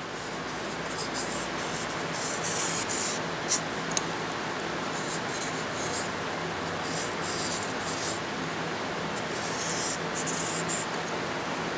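Felt-tip marker scratching on a copper sheet as it traces around a steel part, in several short strokes with pauses between them.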